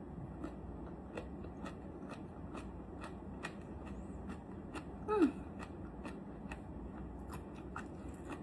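Close-up chewing of crunchy jellyfish head: a steady run of crisp crunches, about three a second, with a short falling vocal hum about five seconds in.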